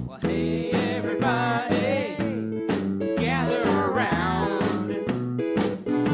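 A band playing a song: a singer over guitar with a steady beat, the sung lines coming in about a second in and again about three seconds in.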